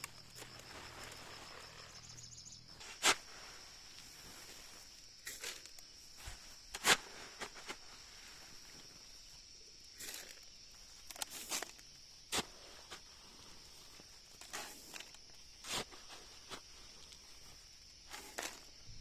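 Scattered sharp knocks, about a dozen at irregular intervals, the loudest about three seconds in and again a few seconds later, over a steady high-pitched drone.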